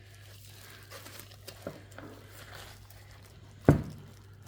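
A heavy keyboard being handled: a few light clicks and taps, then one solid knock with a low thud about three and a half seconds in as it meets a hard surface. A steady low electrical hum runs underneath.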